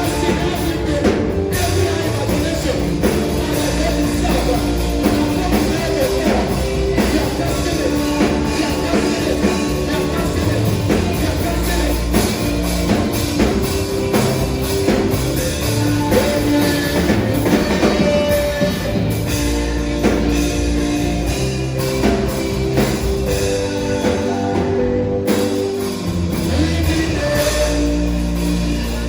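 Worship band music with drum kit and guitar playing held chords under a steady beat, with singing.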